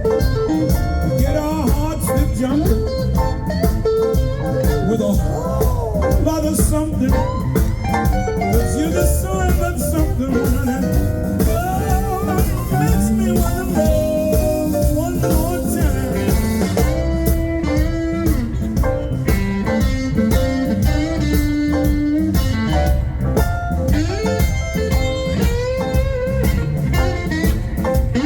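Live blues band playing an instrumental break, with a guitar prominent among the instruments.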